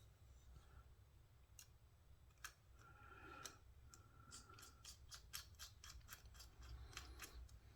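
Faint small clicks of a screw being turned into a folding knife's handle with a bit driver, quickening into a run of about five clicks a second in the second half.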